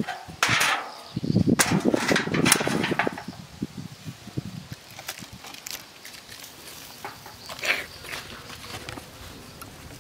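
A flat board cover scraping and knocking against the brick pit and grill as it is dragged off, loudest over the first three seconds. After that, only scattered light clicks.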